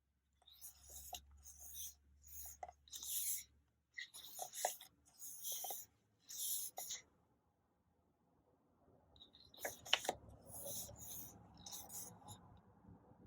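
Paper pages of a thin, paperback-like photobook being turned and handled: a string of short papery rustles that pause briefly about two-thirds of the way in, then resume.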